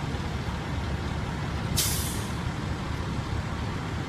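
A fire truck idling with a steady low rumble, and a short hiss of air from its air brakes about two seconds in.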